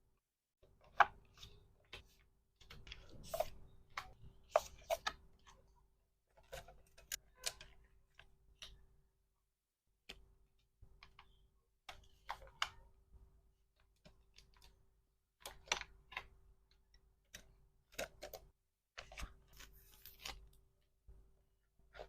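Hands packing small craft items: a string of irregular clicks, taps and short rustles as plastic and packaging are handled, with pauses between bursts.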